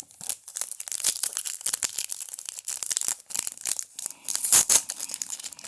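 A baseball card pack's wrapper crinkling and tearing as it is handled and opened, in a run of crackles that is loudest about four and a half seconds in.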